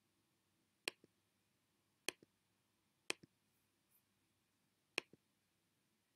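Computer mouse button clicked four times, each a sharp click followed at once by a fainter release click.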